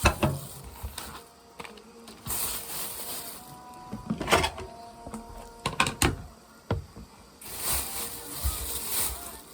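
Kitchen handling noises: an irregular string of sharp clicks and knocks, the loudest about four and six seconds in, between stretches of soft hiss.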